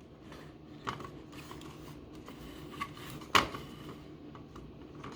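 Light plastic clicks and rattles of a smoke detector being handled with its battery compartment open, a few separate clicks, the sharpest a little past three seconds in.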